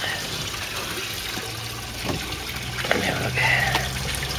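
Water steadily trickling and splashing into an aquaponics fish tank.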